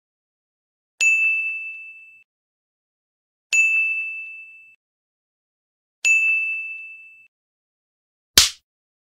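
A bright bell ding sound effect struck three times, about two and a half seconds apart, each ringing out over about a second. Near the end comes a short, sharp burst of noise.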